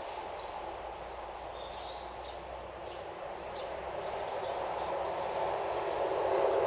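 A steady outdoor rushing noise that grows louder toward the end, with faint short bird chirps over it.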